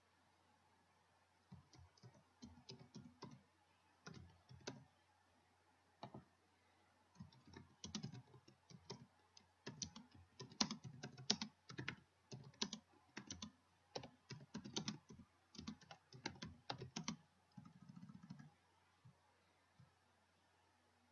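Faint computer keyboard typing: uneven bursts of keystroke clicks that stop a few seconds before the end.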